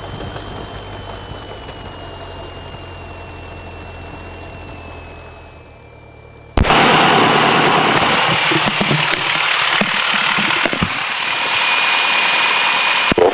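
Cessna 172P's four-cylinder engine idling just after start, heard from inside the cabin, with a whine that rises, then holds and slowly sags in pitch. About six and a half seconds in, the sound jumps suddenly to a much louder, hissing rush that carries on.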